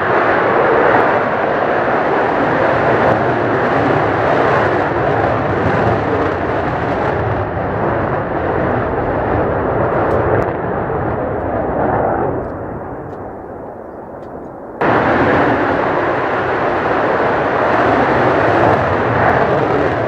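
Loud, steady jet engine noise from a Mitsubishi F-2 fighter on a single turbofan. The noise eases off a little late on, then cuts back in at full strength about 15 seconds in.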